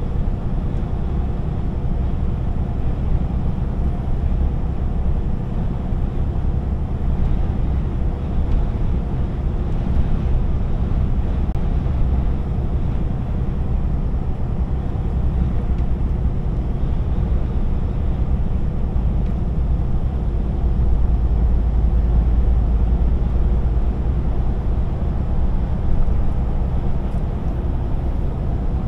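DAF XF 480 truck cruising at motorway speed, heard inside the cab: a steady low rumble of its PACCAR MX-13 six-cylinder diesel mixed with tyre and road noise. The deep rumble swells a little for a few seconds past the middle.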